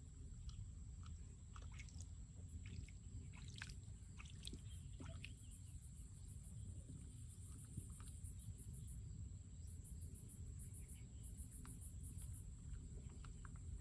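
Outdoor ambience: high-pitched insect chirping in repeated bursts of rapid pulses, over a steady low rumble, with a few faint clicks.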